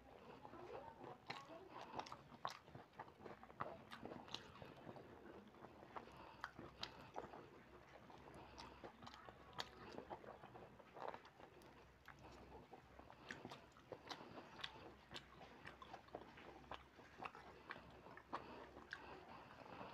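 Faint close-up eating sounds: chewing and wet mouth smacks, with many short irregular clicks, as rice and curry are eaten by hand and a ripe mango is bitten and sucked.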